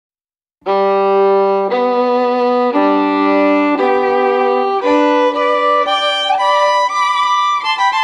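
Background music: a solo violin melody that begins about half a second in with long held notes, then moves on in shorter, quicker notes with a slide between two of them.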